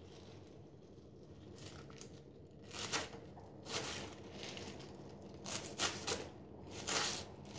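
Small kitchen knife chopping rocket (arugula) leaves on a wooden cutting board: faint at first, then a run of separate crisp cuts from about three seconds in.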